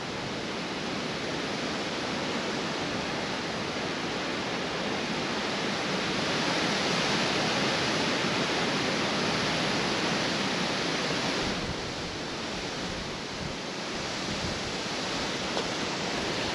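Wind blowing in gusts: a steady rushing noise that swells through the middle and eases sharply about twelve seconds in.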